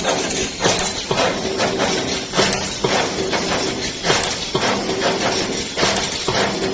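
2D CNC wire bending machine running, with sharp metallic knocks at uneven intervals, one or two a second, as it feeds and bends steel wire, over a steady mechanical hum.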